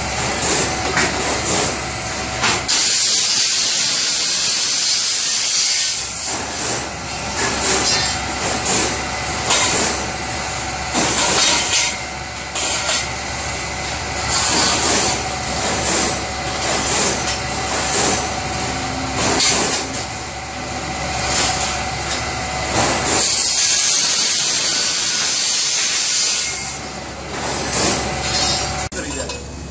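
Rotary pipe-bending machine running while a steel tube is bent: a steady machine hum with repeated metal knocks and rattles. Two spells of loud hiss come in, about three seconds in and again a few seconds before the end.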